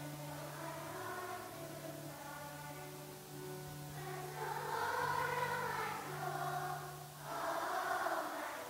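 A group of voices singing a hymn together over instrumental accompaniment of steady held low notes, swelling louder about halfway through and again near the end.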